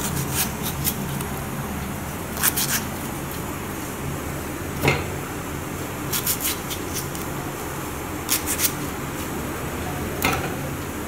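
Scattered light clicks and knocks, a few at a time, as a knife scores tomatoes and the tomatoes are set into a stainless steel pot, over a steady low hum.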